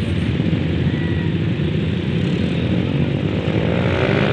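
Water pouring over a concrete dam spillway in full flow: a loud, steady rush of falling water. A humming pitched sound comes in near the end.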